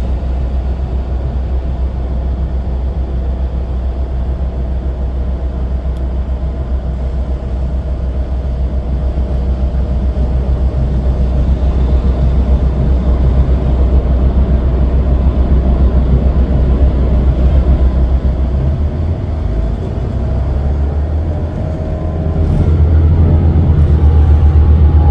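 Steady low rumble of a city bus's engine and road noise heard from inside the cabin. Near the end it grows louder and a thin whine comes in over the rumble.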